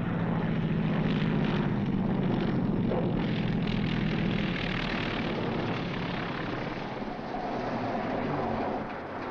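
Lockheed F-5 (photo-recon P-38) piston aircraft engines running with a steady low note, louder for the first four seconds or so and then easing off.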